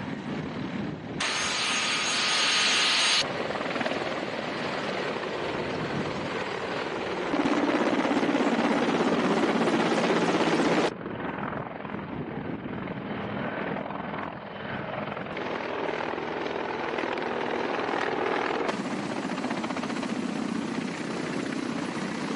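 Mi-28 and Mi-35M attack helicopters running, rotor chop and turbine noise heard across several spliced shots, the sound changing abruptly at each cut. About a second in, a high turbine whine comes to the fore for about two seconds.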